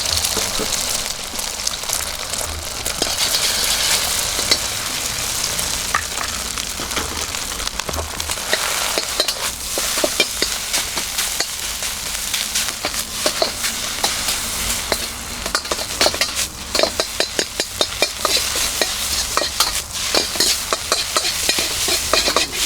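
Stir-frying in a wok: food sizzling steadily while a metal utensil scrapes and knocks against the pan, the knocks coming thicker from about halfway through.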